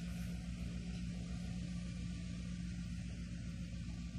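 A steady low mechanical hum over a constant hiss of rushing water.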